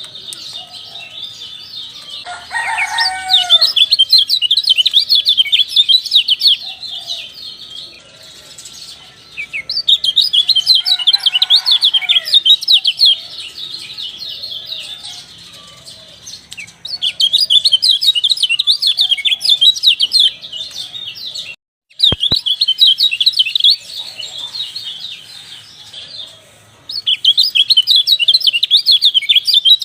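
White-eye (kecial) song: rapid, high, twittering chirps in loud phrases of several seconds, repeated with short pauses between them. Lower descending calls come in briefly about 3 seconds in and again near 11 seconds, and the sound cuts out for a moment with a click near 22 seconds.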